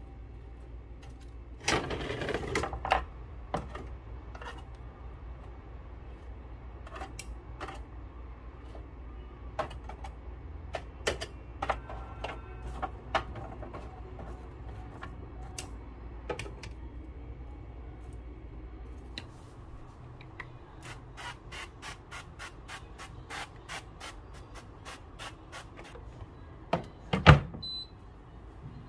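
Metal tongs clicking and scraping against the wire mesh racks of a countertop oven as crisp lotus root chips are picked off, with the dry chips rattling. A low steady hum stops about two-thirds of the way through, and near the end there is one loud thump, the oven door shutting.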